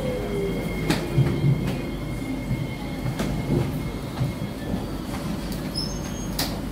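Interior of a C151C metro train car braking into a station. The whine of the traction motors falls in pitch and fades away near the start, leaving a steady low rumble of the wheels with a few sharp clicks as the train slows to a stop.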